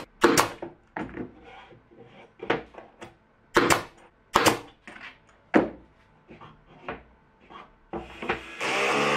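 Pneumatic brad nailer firing several sharp shots into plywood, with lighter knocks and rubbing from wood pieces being handled between them. Near the end a steady motor whir starts.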